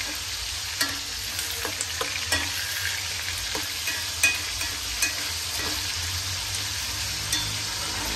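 Chinese sausage (lạp xưởng) sizzling in oil in a small stainless-steel pot, with a dozen or so scattered clicks of metal tongs against the pot as the pieces are turned. The pot has boiled dry and the sausage is frying hard enough to start scorching.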